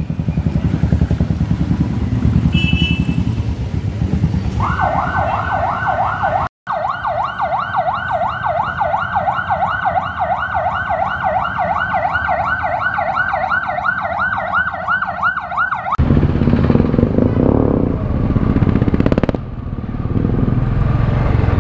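Motorcycle engines running at a ride's start, then a police car's siren yelping in fast up-and-down sweeps, about four a second, for roughly ten seconds. After a sudden cut, a Royal Enfield Classic 350's single-cylinder engine runs on the move.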